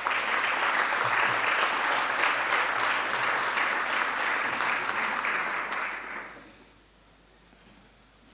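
Audience applauding: steady clapping from a seated crowd that dies away about six seconds in.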